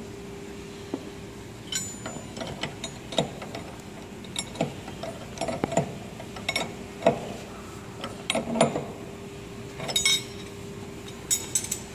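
Spanners on the collet nut of a CNC router spindle during a bit change: a string of irregular metallic clicks and clinks, over a steady hum.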